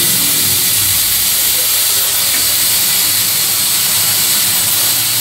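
Steady, loud hiss of compressed air at a tyre-changing stand, with no break.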